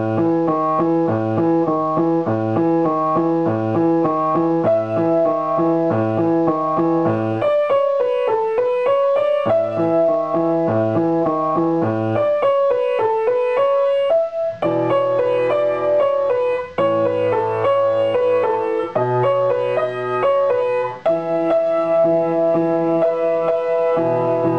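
Grand piano played by a student: a repeated low left-hand chord pattern under a melody in the right hand, with a few short breaks between phrases.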